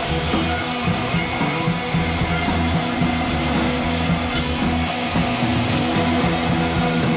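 Background music with guitar, in a rock style.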